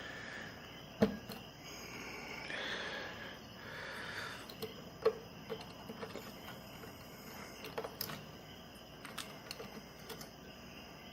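Small clicks and taps of computer parts being handled, with a sharper click about a second in and scattered light ticks later. This fits the CPU cooler fan's cable being plugged onto the motherboard's CPU fan header.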